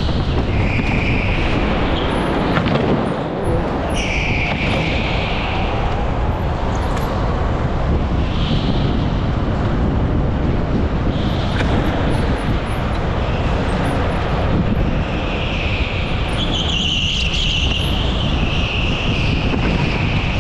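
Onboard sound of an indoor racing go-kart at speed: steady wind and drive noise, with the tyres squealing through the corners several times, longest near the end.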